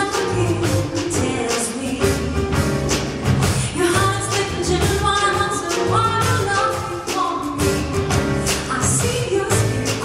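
Female singer performing live with a jazz combo, her voice over the band with drums keeping a steady beat.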